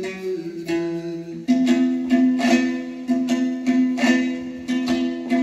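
Dombra, the two-stringed Kazakh lute, strummed in an instrumental passage with no singing: quick repeated strokes over a steady pair of ringing notes, growing louder about a second and a half in.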